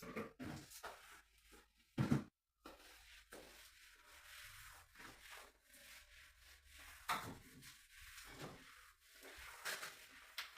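A series of light knocks and rubbing sounds, irregularly spaced, with the loudest knock about two seconds in.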